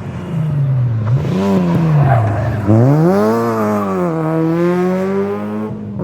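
Rally car engine under hard driving, its revs rising and falling, then dropping and climbing sharply about three seconds in before settling to steady revs.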